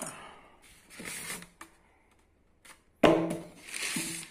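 Cardboard box and packaging being handled while the iMac is unpacked: a rustle and scrape about a second in, then a louder sudden rustle and scrape about three seconds in with a short squeak.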